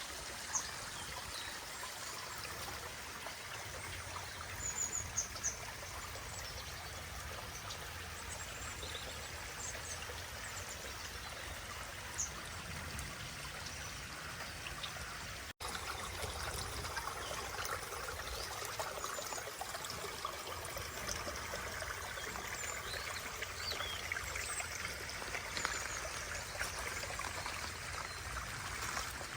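Water running and trickling over the rocks of a pondless waterfall stream, a steady rush, a little louder after a brief break about halfway through, with a few short high bird chirps now and then.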